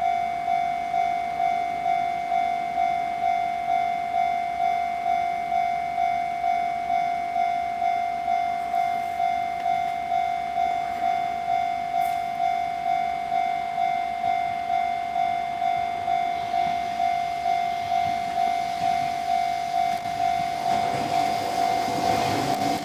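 Japanese railway level crossing alarm ringing, a steady electronic ding repeated in an even rapid rhythm, warning that a train is coming. About twenty seconds in, the rumble of the approaching train rises beneath it.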